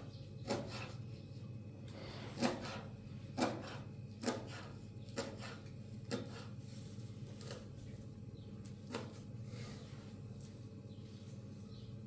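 A series of sharp knocks or taps, about one a second, fading and thinning out toward the end, over a steady low hum.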